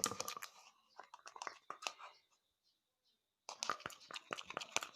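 Homemade glue slime being mixed, giving dense sticky clicks and crackles, with a pause of about a second past the middle before the clicking resumes.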